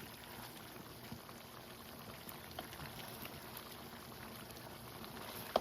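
Pumpkin and chicken stew simmering in a pot: a faint, steady bubbling with scattered small pops. There is one sharp click near the end.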